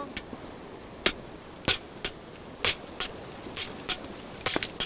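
The hammer head of a Bodyguard multifunction folding shovel (model DJSV-BG) is pounding a wooden stake into the ground. It makes a series of sharp knocks about a second apart, with a few blows coming quicker near the end.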